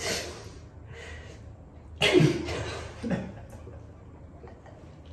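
Stifled laughter from a small group of people: a few short breathy snorts and giggles, the loudest about two seconds in.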